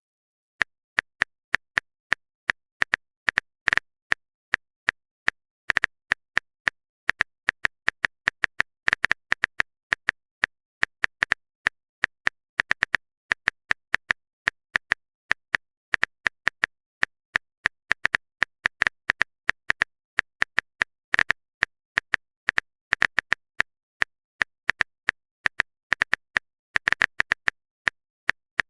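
Phone-keyboard typing sound effect: short, sharp clicks tapped out unevenly, several a second, in runs with brief pauses.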